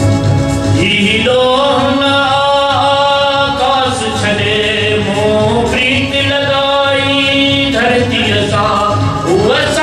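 Male voice singing Sindhi Sufi poetry in a classical style, sliding up into long held, wavering notes, over instrumental accompaniment with a steady low beat.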